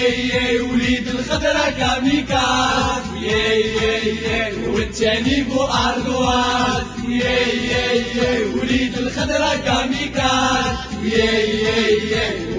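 Football ultras chant: many male voices singing a terrace song together in unison over a steady beat.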